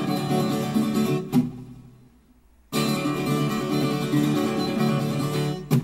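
Background music of plucked and strummed guitar. Phrases end on a sharp accented chord that rings and dies away to near silence, twice, with the playing starting again in between.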